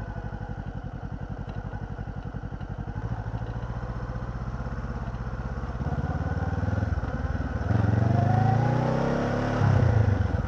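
Honda CB500X's parallel-twin engine idling with a steady even pulse, then about six seconds in it revs up and pulls away, the pitch rising twice as it accelerates.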